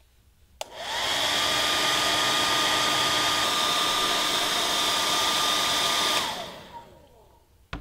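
Handheld hair dryer switched on about half a second in, its motor rising in pitch to a steady blowing whir. About six seconds in it is switched off and winds down with a falling tone, and a single click follows near the end.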